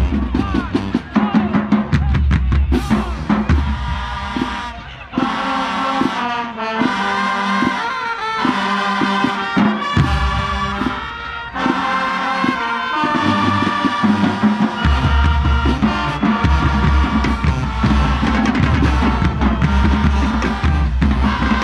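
High school marching band playing: massed horn chords over bass drums and drumline percussion. The deep drums drop out for a stretch in the middle, leaving the horns over lighter percussion, then come back in heavily.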